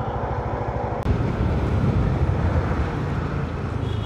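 Yamaha motor scooter running on the road, engine drone mixed with wind and road noise on the rider's camera microphone. About a second in there is a sharp click, after which the low rumble grows louder.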